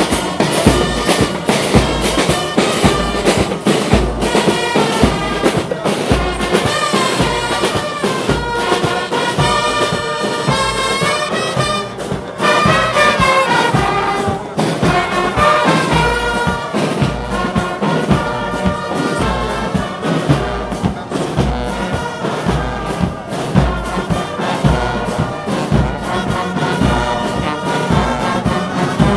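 Brass marching band playing a march: sousaphones, trumpets and trombones over bass drums keeping a steady beat.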